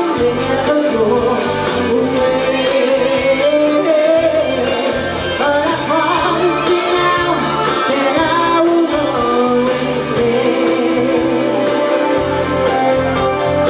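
A woman singing a pop song live into a handheld microphone, over a musical accompaniment with a steady bass line.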